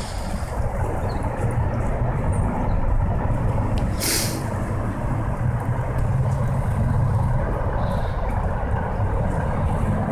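Steady low rumble of heavy road traffic. About four seconds in there is one short, sharp hiss, the release of a large vehicle's air brake.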